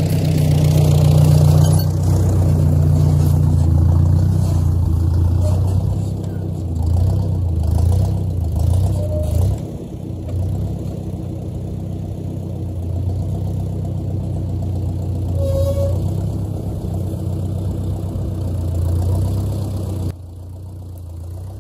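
Ford Jubilee (Ford NAA) tractor's four-cylinder gasoline engine running steadily while the tractor moves a log on its rear forks. The level falls a little about ten seconds in and again near the end.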